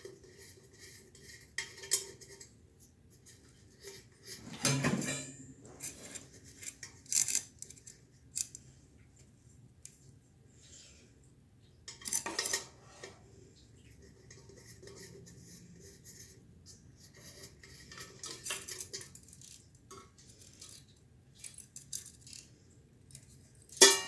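Irregular clinks and clanks of small hard objects being handled, with a sharp metallic clank at the very end that rings on briefly.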